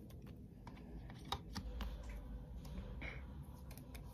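Match Attax football trading cards being handled and flicked through by hand: a run of soft clicks and rustles, the sharpest about a second in.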